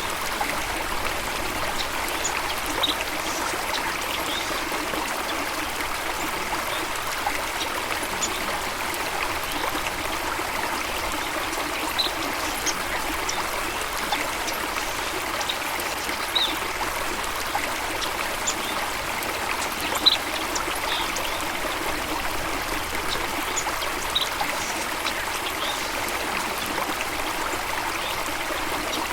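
Steady running water, like a trickling stream, with brief high bird chirps every few seconds; the loudest chirp comes about 20 seconds in.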